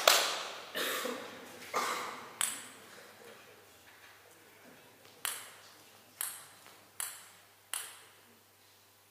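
Table tennis ball bouncing, about eight sharp ticks at uneven spacing, each with a short echo. The last four come about 0.8 s apart, like a ball being bounced ahead of a serve.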